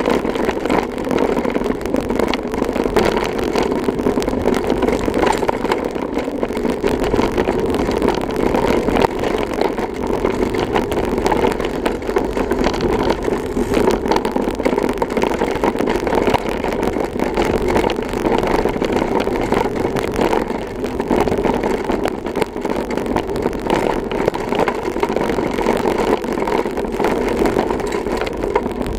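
Mountain bike riding over a dirt woodland trail, heard through a handlebar-mounted camera: continuous knobby-tyre rumble with frame and cable rattle and wind noise, full of small knocks from the rough ground.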